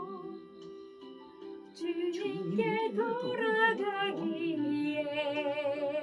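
A woman singing a slow Korean gospel song with vibrato over a keyboard accompaniment track. The voice drops away briefly about half a second in and comes back near the two-second mark.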